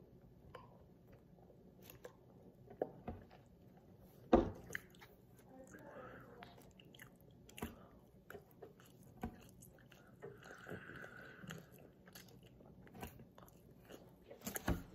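Faint chewing and mouth sounds of someone eating chicken and rice, with scattered soft clicks and one sharper knock about four seconds in.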